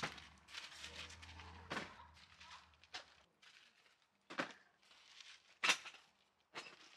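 Camping gear being handled and set down in a tent: a storage crate and a bag knock down in several short thumps, the loudest about two-thirds of the way in, with rustling and shuffling in between.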